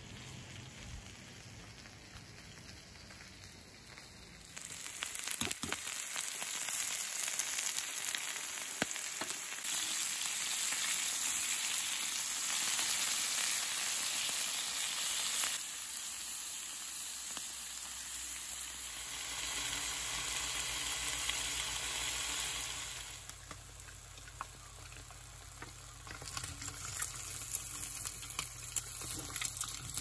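Whole yellow croakers sizzling as they pan-fry in oil, with a steady hiss that starts about four seconds in. It fades near the end, then comes back as eggs fry with a crackling sizzle.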